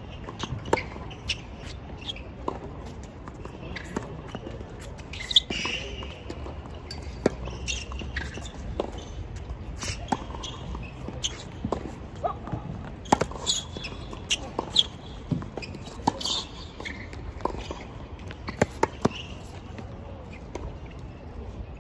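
Tennis ball being struck by rackets and bouncing on the court, sharp knocks at irregular intervals about a second apart.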